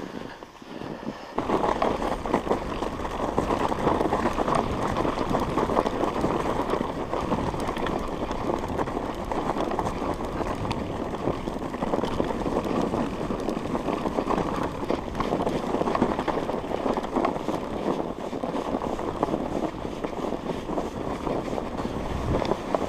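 Mountain bike rolling along a snow-covered track: its tyres crunch and crackle over the packed snow in a steady, loud noise that starts about a second and a half in.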